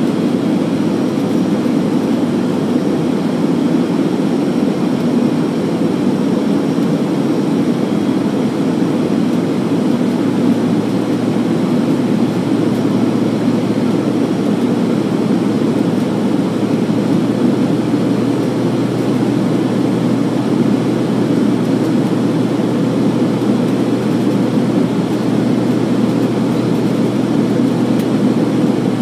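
Steady engine and airflow noise inside the cabin of a regional airliner climbing after take-off, with a constant low hum beneath it.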